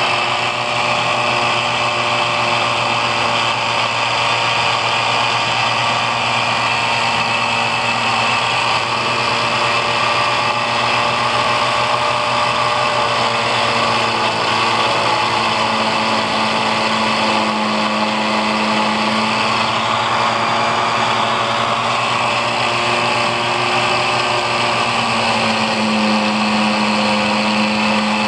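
Angle grinder mounted as a cut-off saw, running steadily, its motor pitch shifting slightly several times.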